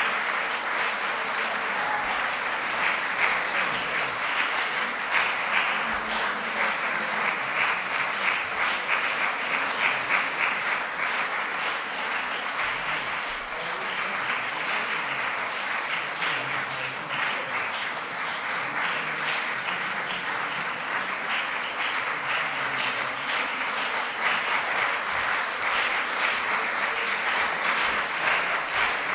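Audience applauding, a dense, even patter of many hands clapping that eases a little midway and grows louder again near the end.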